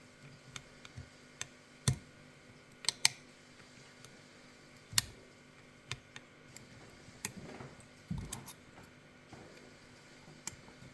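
Irregular light metallic clicks of lock picks and a tension tool working the pin stacks of an Izis pump lock, some clicks sharper than others, with a short stretch of handling rustle a little past the middle.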